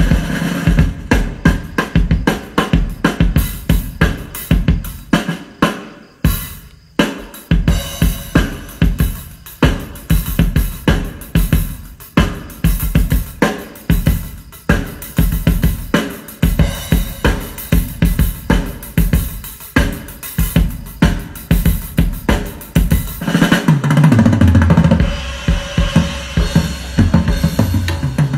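A drum track played loud through a home-built PA speaker stack: a single 18-inch subwoofer cabinet with two 15-inch midrange drivers, unfinished and being tested. The kick and snare hits keep a steady rhythm, with a brief drop-out around six seconds in, and held low bass notes come in near the end.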